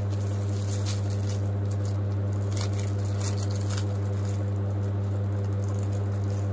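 Plastic packaging around a folded T-shirt crinkling and rustling in short bursts as it is handled and slid across a straw mat, over a louder steady low electrical hum.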